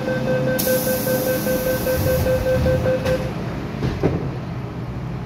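MTR M-Train starting to pull out of a station, heard from inside the car: a rapid pulsing beep stops about three seconds in, after a burst of hiss, then a knock. Low running rumble continues under it.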